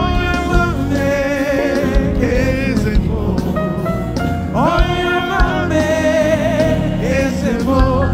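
Gospel worship music: a solo voice singing long, sliding phrases over a backing band.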